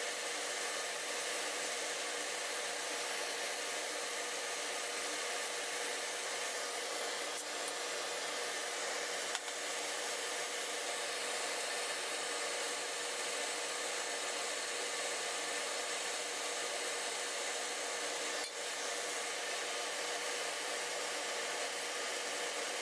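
Handheld gas torch burning with a steady hiss as its flame heats a metal branding iron.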